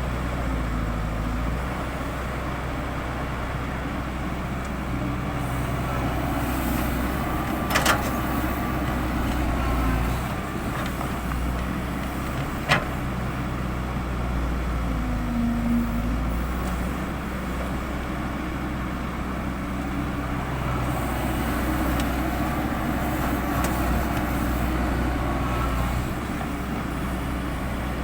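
Heavy diesel construction machinery, an excavator and dump truck, running steadily at work, with two sharp knocks about eight and thirteen seconds in.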